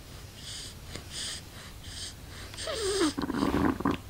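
A baby's noisy breathing: four short breathy puffs, then a falling vocal sound about two and a half seconds in and quick grunting near the end.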